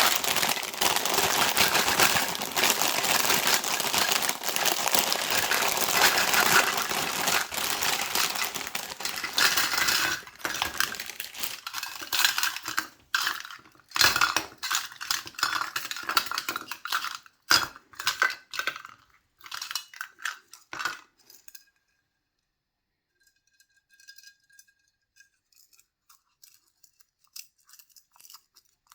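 Packaging of a surprise box crinkling and tearing as it is unwrapped by hand: dense and continuous for about the first ten seconds, then in shorter rustles and taps, thinning to faint occasional clicks after about twenty seconds.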